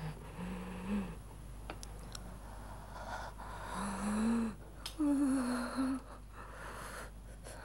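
A person's voice making drawn-out moans and gasps: three held tones, at about half a second, about four seconds and about five seconds in, the last one wavering, with breathy sounds between them.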